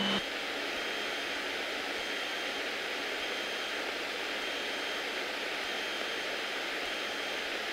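Steady cabin noise of a Beechcraft Bonanza F33A's engine and propeller at climb power just after takeoff: an even hiss with a faint high steady whine.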